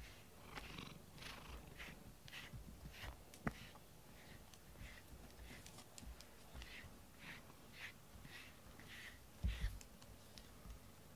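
Domestic cat purring faintly close to the microphone, with a soft rasp repeating about twice a second. A couple of low thumps come near the end.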